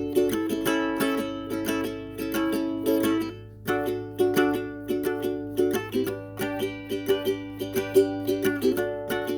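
Upbeat background music led by quick plucked ukulele-like strumming with a steady rhythm.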